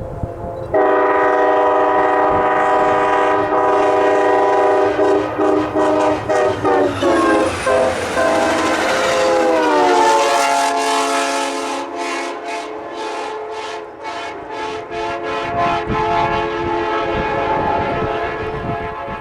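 Diesel passenger locomotive's multi-chime air horn starting suddenly, held long, then sounded in short blasts, its chord dropping in pitch as the train passes. Wheels then clatter over the rail joints in a quick even run of clicks while the horn carries on at the lower pitch.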